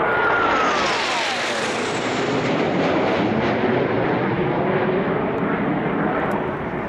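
Jet noise from two Kawasaki T-4 twin-turbofan jet trainers passing overhead in an aerobatic pass. Their engine whine drops steeply in pitch over the first two seconds as they go by, then a steady jet rumble carries on.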